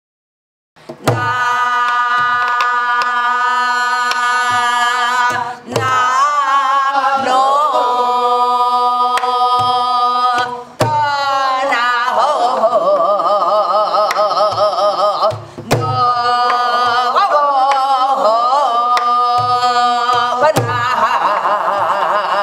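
Korean folk singing with drum accompaniment, starting about a second in: a voice holds long notes with wide, wavering vibrato over sharp drum strokes and low thumps, with short breaks between phrases.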